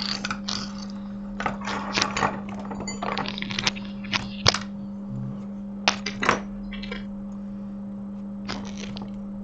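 Scattered small clicks and clinks of metal tools being handled on an electronics repair bench, over a steady low hum.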